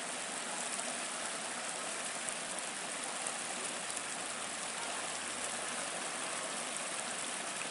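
River water flowing, a steady rushing hiss with no breaks.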